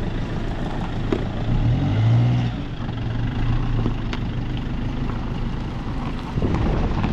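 Fiat Ducato camper van's engine running as the van pulls forward over gravel and a wedged stone, its note rising briefly about two seconds in, with faint crunches from the tyres on the stones.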